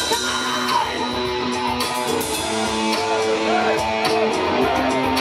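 Metal band playing live: electric guitars holding notes over drums, heard loud through the crowd.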